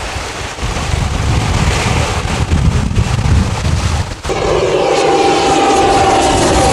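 Single-engine propeller airplane flying low past: a low rumble for the first four seconds, then, after an abrupt change about four seconds in, a steady engine drone whose tones glide down in pitch as the plane goes by.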